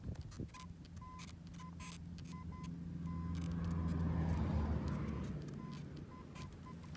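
Metal detector giving short beeps on one high tone at irregular intervals as it is swept over the ground. Under them a vehicle passes with a low hum that swells to its loudest about halfway through and then fades.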